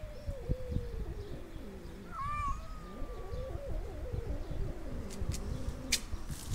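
Domestic cat giving long, low, wavering yowls, the first sliding slowly down in pitch over about two seconds, with a higher, shorter call about two seconds in. A couple of sharp clicks come near the end.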